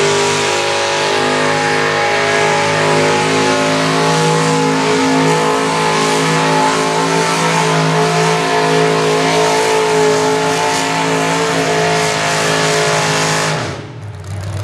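Mini modified pulling tractor's engine at full throttle, pulling a weight-transfer sled through its open exhaust stacks. It holds a steady, high-revving pitch, then cuts off suddenly near the end as the driver comes off the throttle at the end of the pull.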